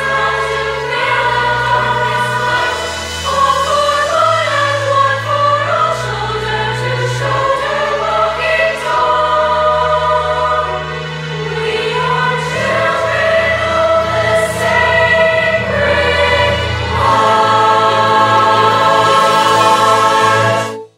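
Background music of a choir singing in sustained chords over held low notes that change every second or two; the music cuts off abruptly near the end.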